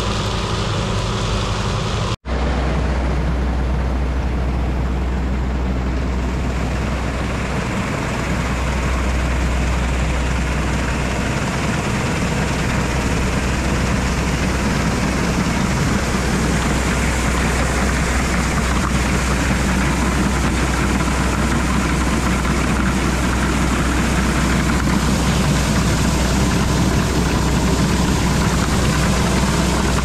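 Large diesel harvesting machinery running steadily under load, a continuous drone with a strong deep hum. A brief dropout about two seconds in breaks the sound, and the hum is steadier after it.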